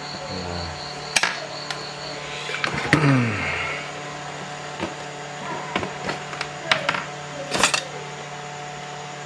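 Scattered sharp plastic clicks and knocks, the loudest about a second in and near the end, as an old rocker switch is worked loose from its latches in a power strip's plastic housing.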